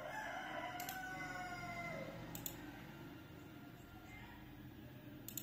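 A few sharp computer mouse clicks: one about a second in, another a little later, and two close together near the end. Over the first two seconds there is a long pitched sound, slowly falling in pitch, which is louder than the clicks.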